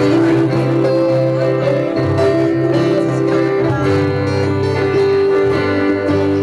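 Live acoustic band playing: several acoustic guitars, with held notes sounding over the strumming.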